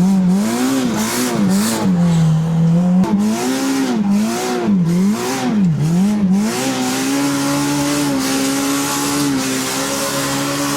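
Side-by-side UTV engine revving up and down repeatedly under throttle as the machine plows through deep snow, then holding steady at high revs for the last few seconds.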